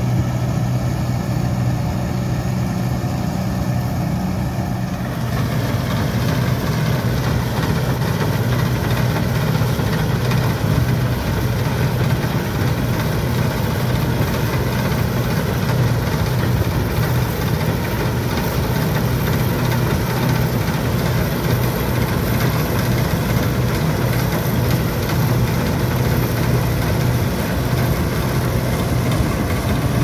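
New Holland Clayson S1540 combine harvester running steadily while cutting and threshing winter barley: a constant engine drone with the machine's working noise over it. It grows louder and fuller about five seconds in.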